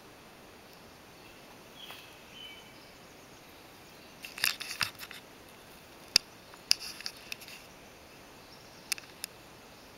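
Quiet early-morning garden ambience with a steady low hiss. There are faint short bird chirps about two seconds in, then a run of sharp clicks and crackles from about four seconds in, scattered and uneven.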